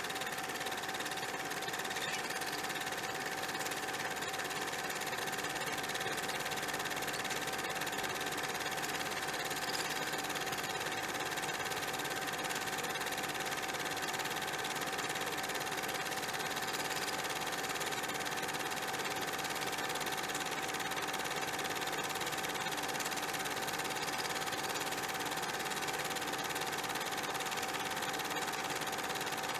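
Steady machine-like whirring with a constant high hum over hiss, unchanging in level and pitch.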